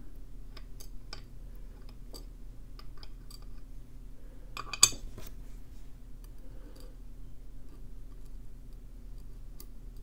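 Light metallic clicks and taps of small lock pins being tipped out of a Mul-T-Lock pin-in-pin core and sorted with tweezers on a metal pin tray, with one sharper click about five seconds in.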